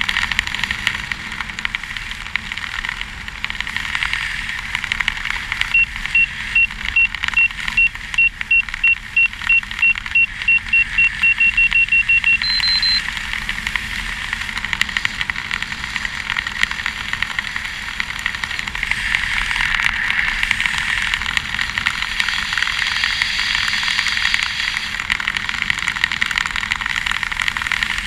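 Wind rushing over a helmet camera's microphone during a parachute descent under canopy. About six seconds in, an audible altimeter beeps in a quickening series for about seven seconds. The series ends with one short, higher tone.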